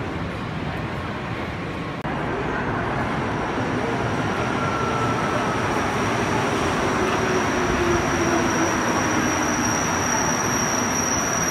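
Rubber-tyred Montreal Metro train pulling into the station: a steady rumble with a whine that falls in pitch as it slows. A high steady tone comes in during the second half and grows stronger toward the end.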